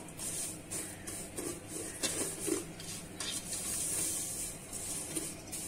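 Plastic slotted spatula stirring and scraping thin vermicelli around a stainless steel pot in irregular strokes over a faint steady sizzle, as the vermicelli toasts in ghee toward light brown.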